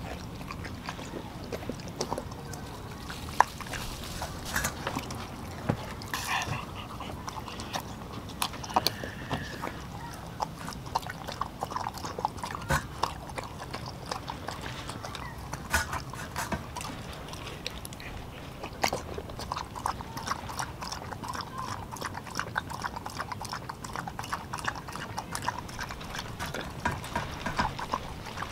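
A dog eating wet ground raw meat from a stainless steel bowl: irregular wet lapping, chewing and smacking, a steady stream of quick clicks.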